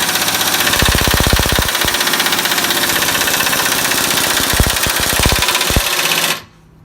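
Pneumatic impact wrench running on a tight bolt: a steady rush of exhaust air, with spells of rapid hammering (a long one about a second in, a few short ones near the end). The air cuts off suddenly near the end.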